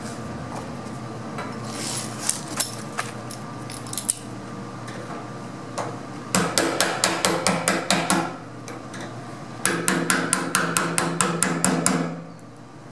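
Hammer tapping on metal: a few scattered taps, then two quick runs of light strokes at about six a second, the last run stopping about a second before the end. The tapping is done while fitting a diesel fuel strainer sock to the pickup and sending unit of a fuel tank.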